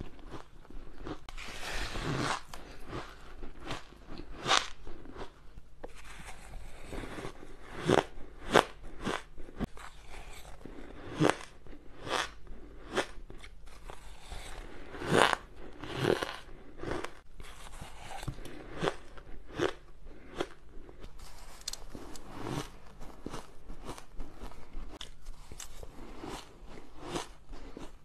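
Close-miked crunching and chewing of shaved ice, with many sharp, irregular crunches as packed chunks and spoonfuls are bitten and chewed.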